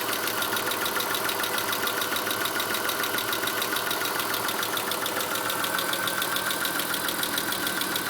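Chrysler Cirrus/Dodge Stratus 2.5-litre V6 engine idling steadily with a rapid, even ticking. The owner fears that valve-to-piston contact during the timing belt job has damaged something in the head, such as a lash adjuster.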